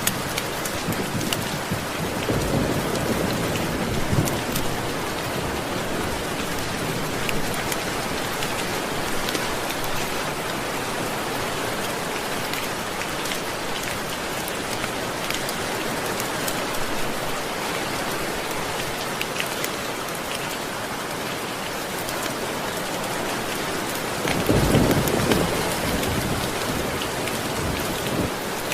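Steady rain, with low rolling rumbles of thunder: one a couple of seconds in and a louder one near the end.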